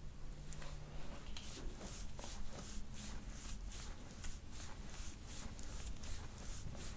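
Metal soft-tissue scraping tool stroked quickly and repeatedly over the skin of the back, a soft rasping swish about three times a second that starts about a second in. It is working over stiff mid-back tissue and scar tissue.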